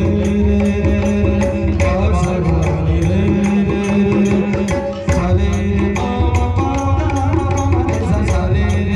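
Music with a steady hand-drum rhythm under held melodic notes; a new phrase starts about five seconds in.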